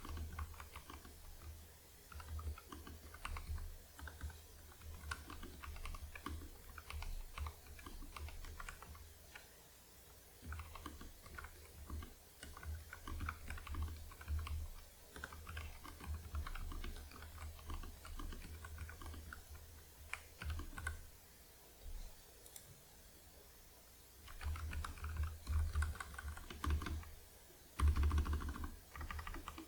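Typing on a Nuphy Air75 mechanical keyboard with lubed Gateron Red linear switches and a tape mod: fast runs of keystrokes with a few short pauses.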